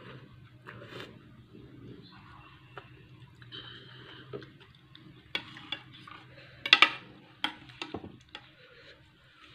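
Cutlery clinking and scraping against a bowl of noodle soup as noodles are scooped up. The loudest clinks come in a quick cluster about seven seconds in.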